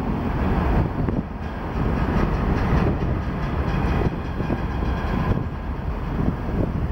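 A train rumbling across a steel railway bridge, with a faint rhythmic clatter and a thin high squeal in the middle, heard through heavy wind buffeting on the microphone.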